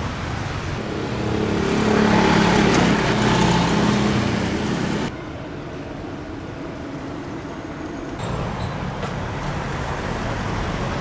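Street traffic with a motor vehicle passing close by: its engine grows louder over the first two seconds, holds, then cuts off suddenly about five seconds in, leaving a quieter, steady traffic hum.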